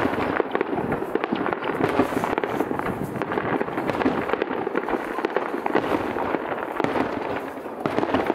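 Aerial fireworks shells bursting: a dense, unbroken run of bangs and crackles.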